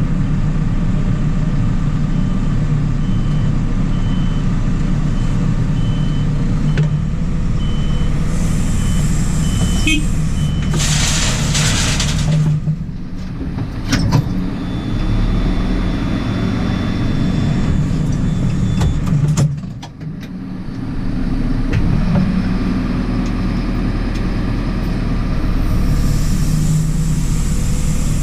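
JCB 4CX backhoe loader's diesel engine running steadily. A repeating high beep sounds through the first third, and a short hiss comes near the middle.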